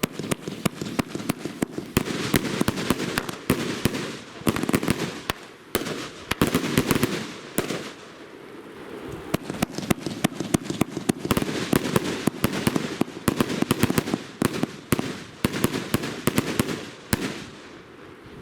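A firework cake (battery) firing: a rapid, continuous string of shots and bursts with crackle in between, easing off near the end.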